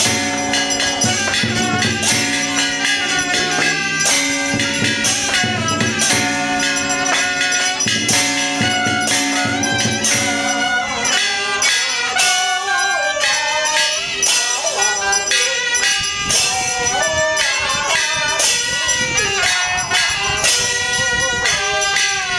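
Traditional Chinese ritual music: a wavering pitched melody over steady beating of cymbals and percussion. A low drone underneath drops out about eleven seconds in.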